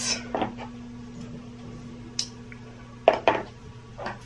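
A few light knocks and metallic clicks as a folding pocket knife and small boxes are handled and set down on a hard tabletop. The loudest pair comes about three seconds in.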